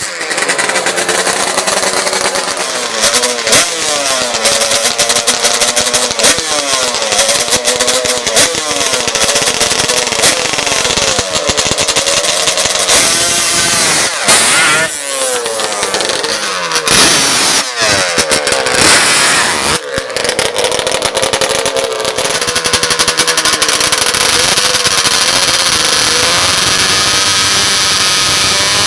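Racing ATV engines revving hard, their pitch rising and falling again and again, with a few quick sharp revs-and-drops near the middle.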